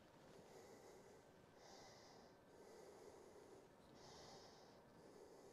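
Near silence with faint, slow breathing close to the microphone, about one breath every two seconds.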